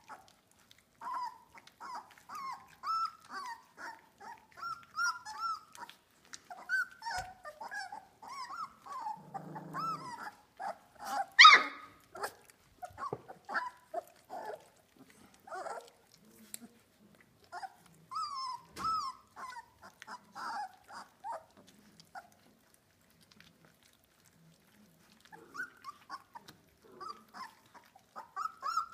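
A litter of three-week-old Australian Labradoodle puppies whining and squeaking in short calls that bend up and down in pitch, with a brief low growl about nine seconds in and one loud yelp about eleven seconds in. The calls stop for a few seconds a little past twenty seconds, then start again.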